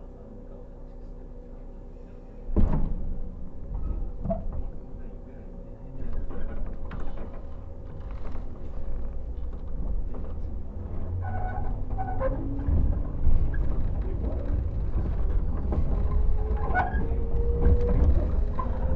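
Inside a JR 115-series electric train's motor car: a quiet steady hum, then a single loud bang about two and a half seconds in, typical of the sliding doors shutting. The train then moves off with a rising rumble, and from about the middle its MT54 traction motors whine, climbing steadily in pitch as it accelerates.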